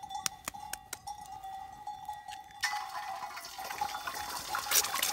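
An egg dropped into a hot enamel pan over a campfire starts sizzling suddenly about two and a half seconds in, and keeps sizzling. Before that there are sharp crackling clicks from the wood fire.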